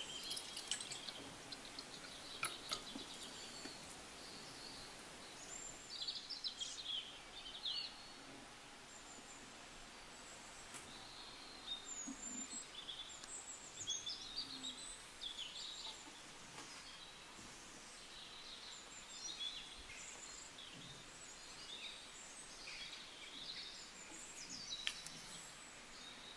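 Faint birdsong: scattered short chirps and whistled glides from small birds over a low hiss. Near the start, the last of the juice trickles into a glass.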